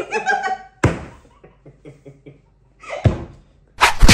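Two people laughing, broken by a few dull thumps and knocks: one about a second in, another about three seconds in, and the loudest near the end.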